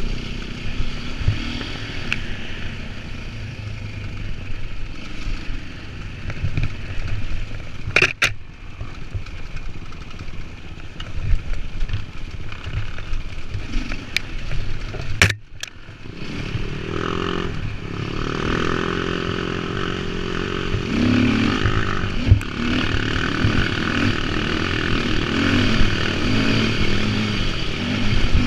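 Enduro dirt bike engine running and revving on a rocky trail, with stones clattering under the wheels. Two sharp knocks come about eight and fifteen seconds in, and the engine works harder and louder from about seventeen seconds in.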